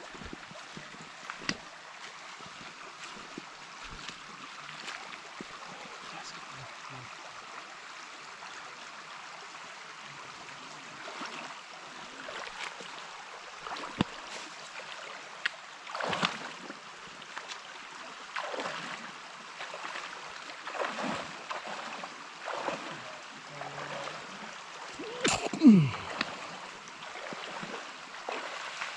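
Shallow creek flowing steadily over rocks. In the second half come irregular sloshes and knocks of people wading across, the loudest about 26 seconds in.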